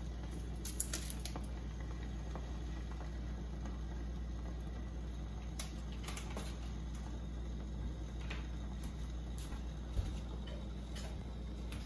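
Water bubbling softly in a glass saucepan of dry noodles on an electric stove, a faint steady patter over a low hum, with a few light clicks and a soft thump about ten seconds in.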